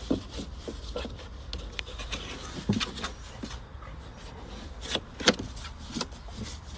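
Golden retriever rolling and wriggling on its back on wooden deck boards: irregular rubbing and scraping of fur and claws against the wood, a few sharper scrapes about five seconds in, over a steady low rumble.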